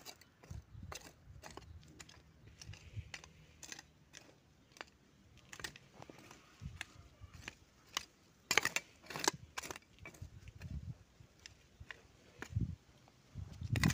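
Small hand hoe chopping and scraping into loose garden soil, in irregular strikes with gritty scrapes between them. The sharpest strikes come about eight and a half to nine seconds in.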